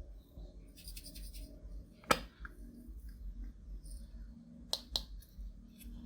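Handling sounds from breaking up makeup and mixing it into clear slime: soft scraping and crackling, with a sharp click about two seconds in and two quicker clicks near the end.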